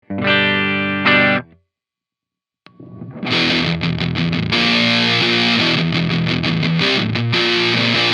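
A brief ringing chord struck twice, then about a second of silence. After that, an electric guitar through a heavy distortion pedal plays a thick, saturated riff with short choked stops between the chugs.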